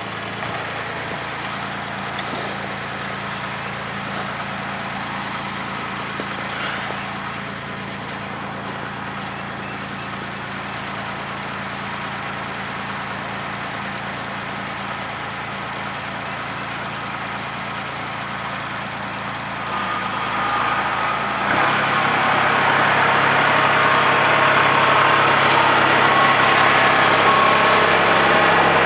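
Engine of a machine with lifting forks running steadily, then its note changes and it gets louder about twenty seconds in, as it takes on more revs or load.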